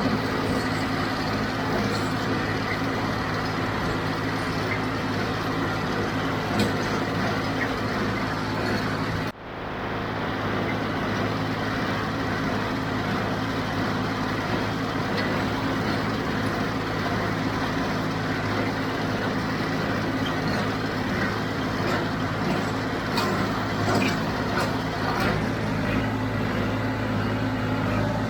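John Deere 5055D tractor's three-cylinder diesel engine running steadily while it pulls and powers a 348 square baler through the hay. The sound drops out for a moment about nine seconds in.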